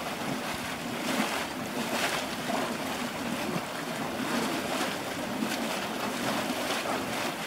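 Wallender Born cold-water geyser erupting: water gushing up and splashing in its basin with a steady rush and uneven surges.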